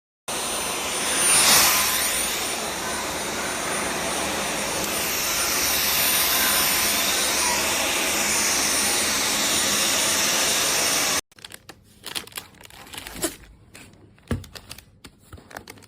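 Dyson V12 Detect Slim cordless stick vacuum running, a steady rush of air with a thin high whine, which cuts off abruptly about eleven seconds in. Light clicks and knocks of handling follow.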